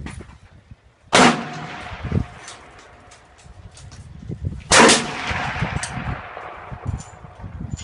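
Two loud bangs about three and a half seconds apart, each leaving a short ringing tail, over gusting wind noise and low rumble on the microphone. It sounds like something loose slamming in a strong wind.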